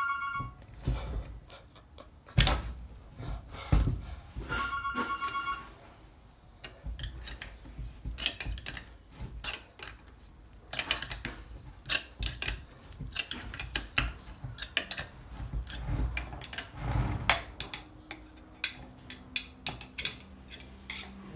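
Sharp metal clicks and small knocks of an open-end spanner working the outlet bolts on a stainless steel screw pump, coming thick and fast through the second half. At the start and again about five seconds in, a short pulsing two-tone electronic ring sounds.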